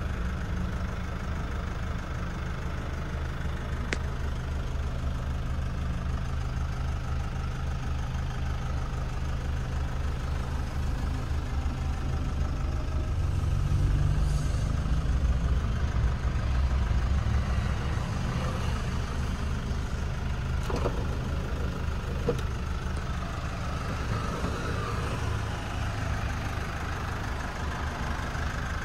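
Jeep Wrangler Unlimited's 2.8 CRD four-cylinder common-rail turbodiesel idling steadily.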